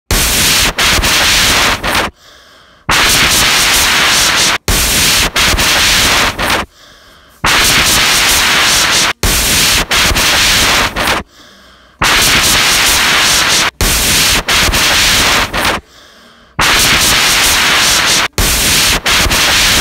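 Loud, even hiss of static, broken by short near-quiet gaps of under a second about every four and a half seconds and by brief momentary cutouts.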